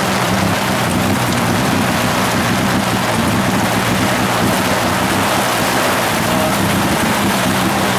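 Tuk-tuk engine running steadily at low speed, heard from inside the open passenger cab, with a steady hiss of rain falling.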